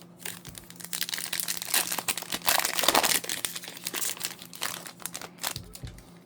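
Plastic wrapper of an Upper Deck hockey card pack being crinkled and torn open by hand. The crackling is loudest about halfway through and stops shortly before the end.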